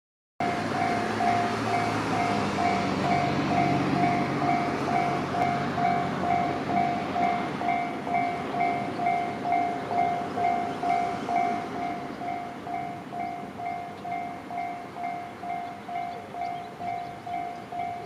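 Japanese level-crossing warning alarm ringing, an even two-tone ding about twice a second, signalling that the crossing is closed. Under it a passing train's running rumble is loud at first and dies away about twelve seconds in.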